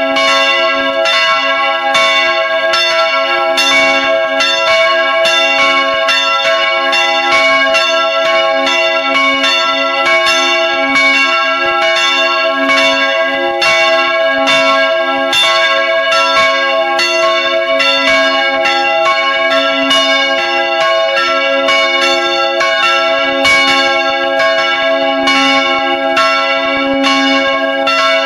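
Swinging church bells ringing close up in the bell chamber, their clappers striking again and again in an uneven, overlapping rhythm of about two strokes a second over a steady hum of ringing tones.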